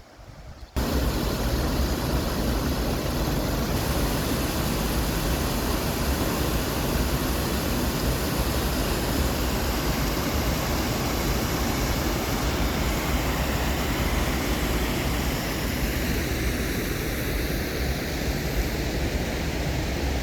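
Stream water rushing: a loud, steady rushing noise that starts abruptly about a second in.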